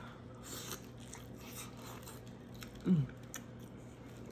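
A person chewing food close to the microphone, with wet smacking and soft crunches. About three seconds in there is one short, low vocal sound that falls in pitch.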